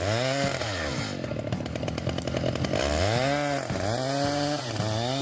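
Chainsaw engine revved up and down in repeated throttle bursts, about four times, its pitch rising and falling with each one and dropping back toward idle between them.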